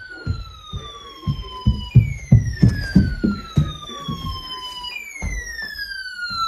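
Electronic siren-style alert tone that falls steadily in pitch and jumps back up to start again about every three seconds. Under it are irregular low knocks and thumps, loudest two to four seconds in.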